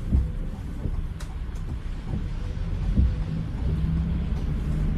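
Low, steady rumble inside a car's cabin as it drives slowly over wet pavement in the rain, with a faint hum. There is a thump just after the start and another about three seconds in.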